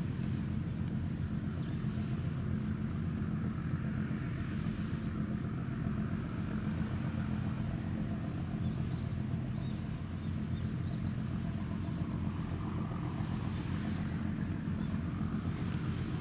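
Steady low drone of the oil tanker YOT-01's engine: an even hum made of several low pitches that holds without change.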